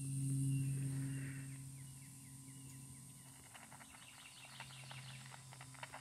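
A white-tailed deer eating from a plastic feed bowl, with rapid, irregular crunching and clicking from about halfway through. Before that, a low steady hum swells and fades, and insects buzz faintly and high throughout.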